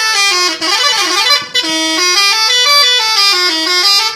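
SCH-721 musical horn playing a tune of short stepped notes that rise and fall, with a brief break about one and a half seconds in.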